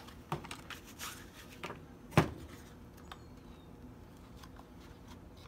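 Light clicks and rustling as gloved hands handle the parts of a new pool-pump shaft seal, with one sharper knock about two seconds in.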